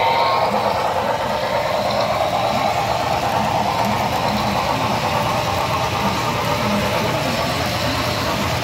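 HO-scale Broadway Limited model of Southern 610 steam locomotive running past, its onboard sound chuffing about two to three times a second over the steady rumble of the wheels and coaches on the track.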